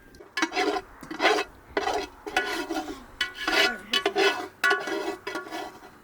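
A metal utensil scraping and stirring in a metal cooking pot in rough, repeated strokes, about two a second, with a faint metallic ring.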